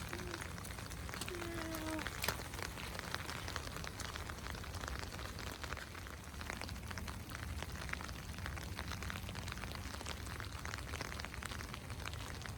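Steady rain falling, many small drops ticking close by, over a low steady hum.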